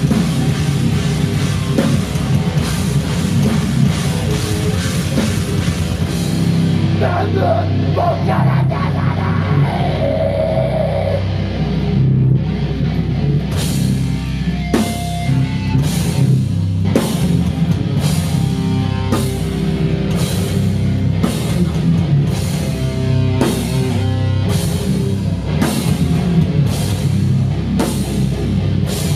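Hardcore punk band playing live: distorted electric guitar, bass and drums, loud through a small venue's PA. About halfway through the cymbals drop out for a few seconds, then the band settles into a slower, even beat with a cymbal crash about every three quarters of a second.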